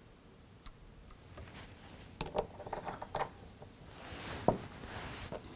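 Faint clicks and light rustles of a whip finish tool and tying thread being worked at the head of a fly in a fly-tying vise, with a sharper click about four and a half seconds in.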